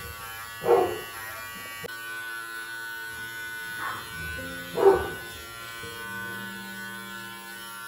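Corded electric pet clipper buzzing steadily as it shaves matted fur off a dog, with two short louder sounds, about a second in and near five seconds.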